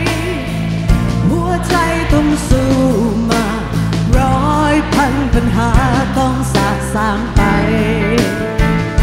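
A woman singing a Thai pop-rock ballad live in concert, her voice wavering with vibrato over a full rock band with a drum hit roughly every second.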